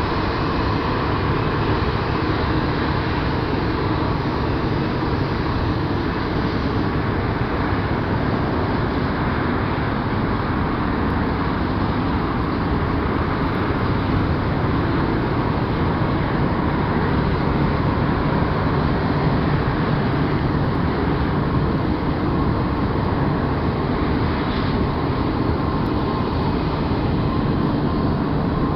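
Boeing 787-8 Dreamliner taxiing on its turbofan engines at idle: a steady whine over a low rumble that holds level throughout.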